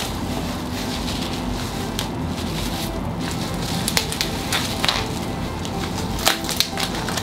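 Plastic bubble wrap crinkling and crackling as hands handle and rub a wrapped package. A few sharper crackles come about four to five seconds in and again near the end.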